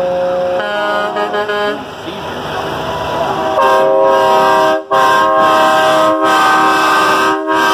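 Semi truck air horns blowing as trucks pass, sounding several pitches at once like a chord. A short run of choppy blasts comes about a second in, then a long loud blast from about halfway, broken by three brief gaps.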